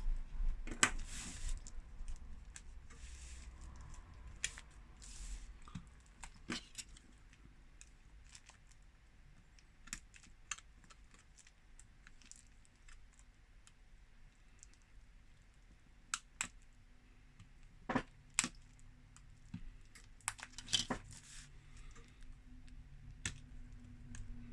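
Scattered small clicks and taps of precision tools on a smartphone's frame while its tiny screws are taken out, a few sharper clicks in the second half.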